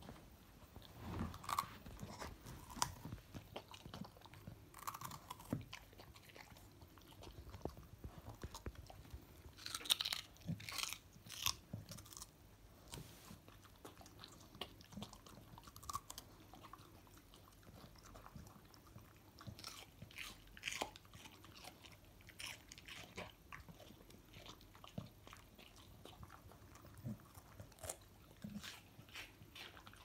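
A Staffordshire Bull Terrier biting and chewing a stick of raw celery: irregular crisp crunches, with a cluster of louder bites about ten seconds in.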